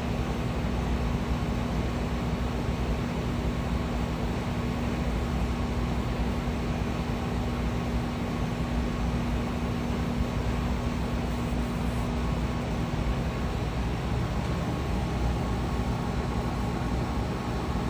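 Steady mechanical drone with a constant low hum running unchanged throughout.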